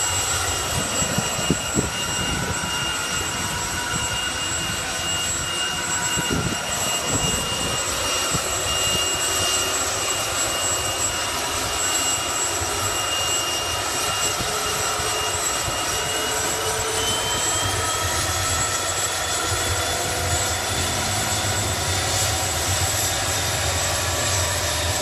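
Erickson S-64 Air-Crane helicopter, built 1967, running on the ground with its main rotor turning: a steady high turbine whine over heavy rotor and engine noise. The whine rises a little in pitch about two-thirds of the way through.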